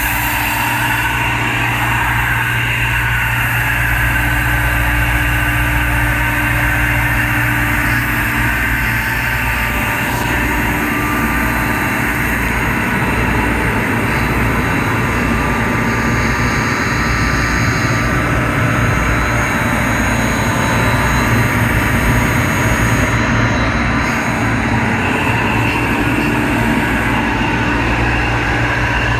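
Kaeser ASD 40 T 40 hp rotary screw air compressor, on 460-volt three-phase power, running steadily: a constant loud mechanical hum with several steady tones over it.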